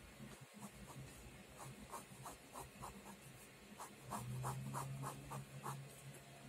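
Pen drawing on paper: a quick run of short, faint scratchy strokes, a few each second.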